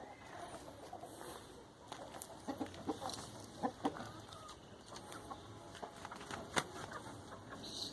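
Chickens clucking in a backyard flock: short scattered clucks and brief calls over a low background.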